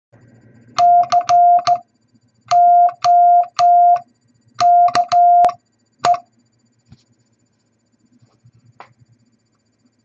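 Morse code sent by hand on a straight telegraph key: a steady beep switched on and off in four letters, dash-dot-dash-dot, dash-dash-dash, dash-dot-dash, dot, spelling C-O-K-E. Each stroke of the key adds a small mechanical click.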